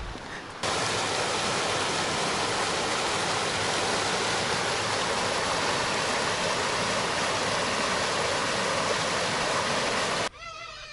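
A small rocky river rushing and splashing down over rocks in cascades: a steady, even rush of water that starts suddenly just under a second in and cuts off suddenly near the end.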